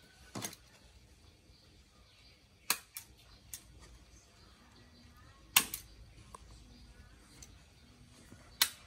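Sharp, separate clicks from a small hand-held grooming tool, about seven spaced irregularly, the loudest a little past the middle and near the end.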